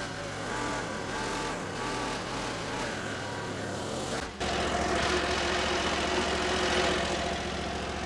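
Chinese mini skid steer's engine running as it raises a pallet of pavers on its forks. About four seconds in the sound cuts abruptly to a louder, steadier engine note.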